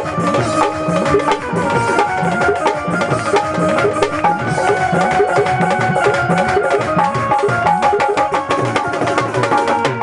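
Instrumental break of a Hindi devotional bhajan: a hand drum plays a running rhythm of strokes that bend in pitch, over dense quick percussion strikes and a held melody line.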